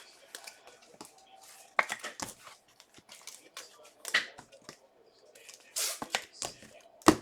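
Trading-card packs and cards being handled: a string of short rustles and crinkles with a sharp snap near the end.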